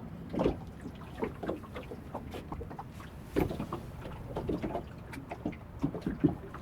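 Water lapping and slapping against the hull of a small fishing boat, with irregular light knocks and splashes. The strongest come about half a second in, about three and a half seconds in and again near the end.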